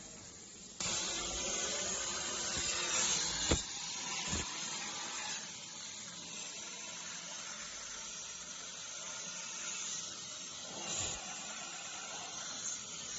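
CNC plasma torch cutting a metal tube: a steady hiss that starts suddenly about a second in, loudest for the first few seconds and then carrying on a little quieter, with a few sharp clicks.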